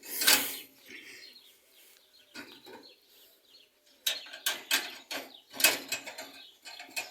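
A knock just as it begins, then after a quiet stretch a run of sharp, irregular clicks and rattles, as of a wire cage door and its latch being handled.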